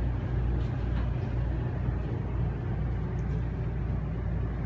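Steady low, engine-like drone of running machinery inside the mobile clinic van.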